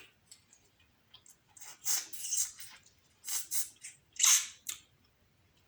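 Close-miked eating sounds of seafood: three short clusters of crisp, wet cracking and smacking about two, three and a half, and four and a half seconds in.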